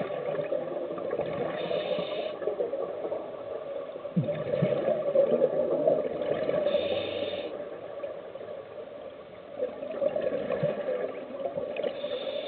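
Scuba divers' exhaled bubbles burbling underwater, in swelling and fading waves, with short hisses about every five seconds.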